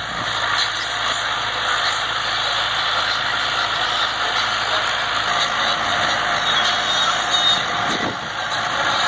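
Massey Ferguson tractor's diesel engine running steadily under load while it pulls a disc harrow through ploughed soil.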